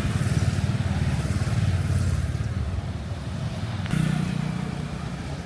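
Motorcycle engine running close by, a steady low chugging; its note shifts about four seconds in.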